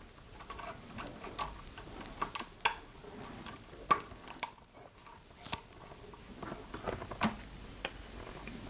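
Scattered small clicks and taps of parts being handled and fitted back into the oscilloscope's scale illumination assembly, about eight in all, irregularly spaced.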